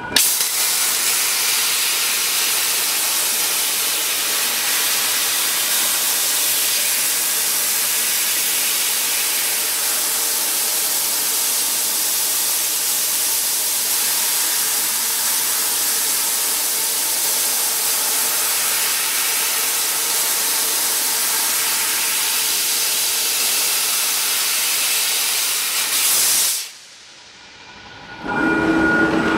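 6000 W fiber laser cutting machine cutting 15 mm brass plate: a loud, steady hiss of the cut and the assist-gas jet at the nozzle. The hiss stops suddenly about 26 seconds in, and after a short quieter gap a different sound with steady humming tones starts near the end.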